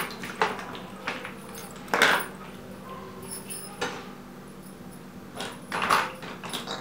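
Hard plastic toys and building blocks knocking and clattering against each other and the tiled floor as a child's hands move them: a handful of separate knocks, the loudest about two seconds in, with a short cluster of clatter near the end.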